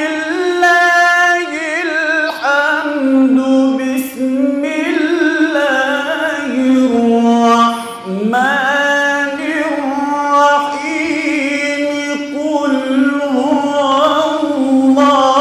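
A man's solo voice reciting the Quran in the melodic, drawn-out style, holding long notes with ornamental turns and vibrato. The phrases change with brief dips about four and eight seconds in, the second followed by a rising glide into a new phrase.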